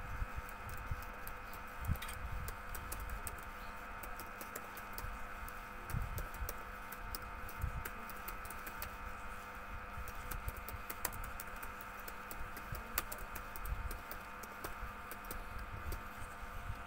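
Typing on a computer keyboard: irregular runs of key clicks and key-bottoming thuds.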